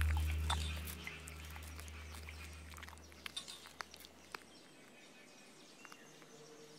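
A low music drone fading out over the first four seconds or so. Over it, scattered faint crisp clicks and crunches of a praying mantis chewing through a grasshopper's hard exoskeleton.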